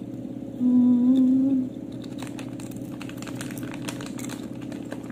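Crisp, irregular crunching of Doritos tortilla chips being chewed close to the microphone. It follows a short hummed "mm" about half a second in, which is the loudest sound.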